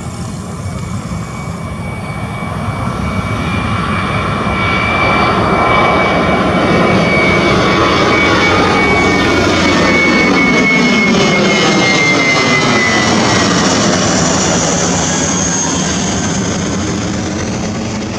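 Twin-engine jet airliner at takeoff power, lifting off and climbing directly overhead. The jet noise builds to a peak in the middle, with a high whine that drops slightly in pitch as the plane passes, then starts to fade.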